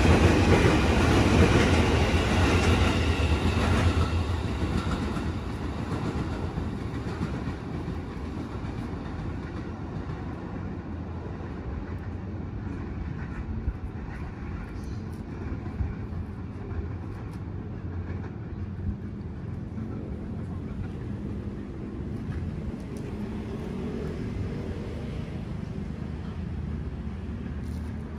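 Low rumble of a passing vehicle, loudest at the start and fading away over the first several seconds, leaving a steady low background noise.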